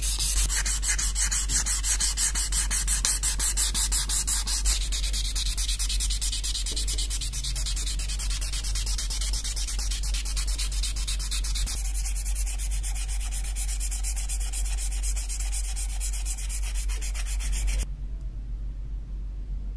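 Sanding on a knife during restoration: rapid, even back-and-forth abrasive strokes with a bright, hissy scrape. The strokes stop suddenly near the end, leaving a low steady hum.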